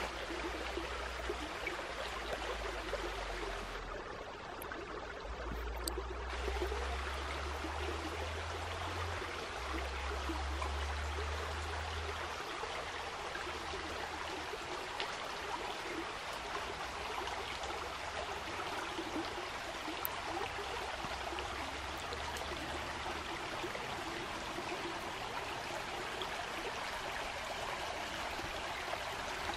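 Woodland stream running steadily, with a low rumble coming and going at times.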